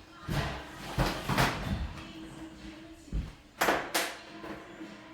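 A series of knocks and clacks, about six in all, from a vinyl accordion door and its hardware being handled and moved, with the two loudest a little past halfway.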